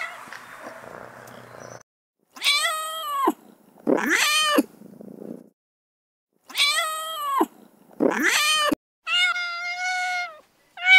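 Recorded domestic cat meows played back from a cat-sound app. A purring-and-meowing clip runs for about the first two seconds. Then come three pairs of drawn-out meows with short silences between them; the first two pairs sound alike, and the last pair is steadier in pitch.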